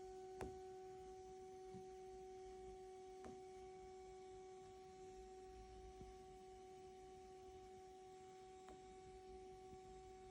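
Faint steady electronic whine: one clean tone with a weaker one an octave above, the unwanted noise on an Allen & Heath CQ-20B digital mixer used with an iPad. A few faint clicks sound over it.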